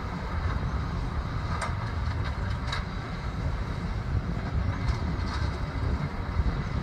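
John Deere 7290R tractor running steadily under load, pulling a John Deere V451R round baler pressing straw, with a few light clicks from the baler as it finishes and ejects a round bale.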